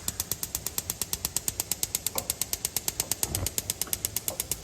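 Gas range's electric spark igniter clicking rapidly and evenly, about a dozen clicks a second, while the center burner is being lit.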